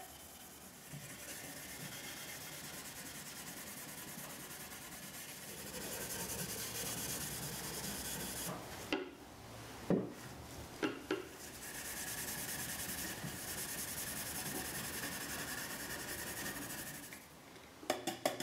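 A pad of steel wool rubbing paste wax over a finished cherry and maple wooden box, a steady scratchy hiss, broken about nine seconds in by a few knocks as the box is turned over before the rubbing resumes. Near the end it gives way to quick short strokes of a horsehair shoeshine brush buffing the wax.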